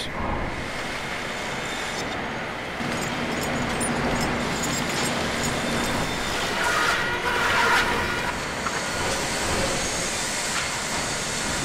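Lumber mill machinery running: a steady clatter and rumble of board conveyors and rollers, with a low hum through the middle and a harsher, higher stretch about seven seconds in.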